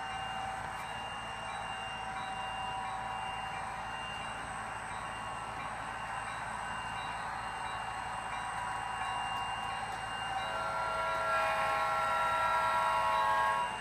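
HO-scale model locomotive sound decoder (TCS WOWDiesel) playing a turbocharged EMD 645 diesel running, through a tiny sugar-cube speaker. About ten seconds in it sounds a multi-chime Nathan air horn, several notes at once, held for about three seconds and cut off sharply.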